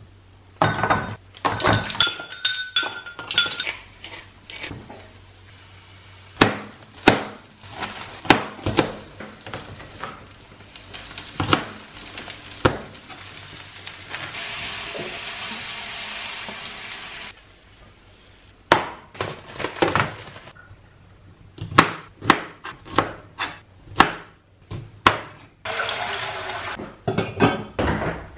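Kitchen cooking sounds in quick succession: white ceramic bowls clinking and ringing, and utensils and pans knocking. About halfway through, a few seconds of steady sizzling from tofu and vegetables frying in pans. Near the end a fridge door is opened.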